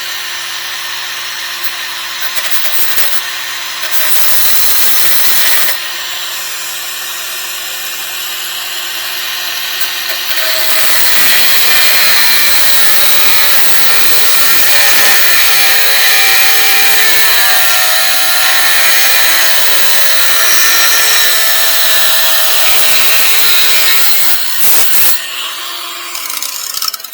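Angle grinder cutting a steel coach screw to length. The motor runs freely, bites into the metal briefly about four seconds in, then cuts steadily for most of the rest, and winds down twice near the end.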